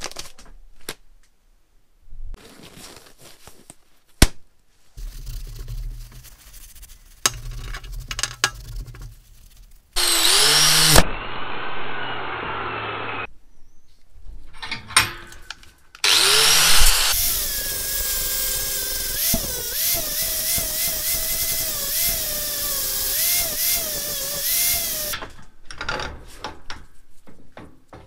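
Angle grinder with a flap disc spinning up and grinding a rusty steel hammer head, its whine dipping and recovering as the disc bites, in a few separate runs broken by abrupt cuts. Quieter scraping, clicks and handling knocks come between runs and near the end.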